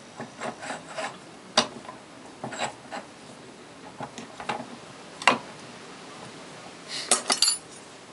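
Irregular metallic clicks and clinks of a spanner and hub parts as a lock nut is worked off a Sturmey-Archer 3-speed hub clamped in a bench vise, with light rubbing between. The sharpest knocks come about a second and a half in and about five seconds in, then a quick run of clinks near the end.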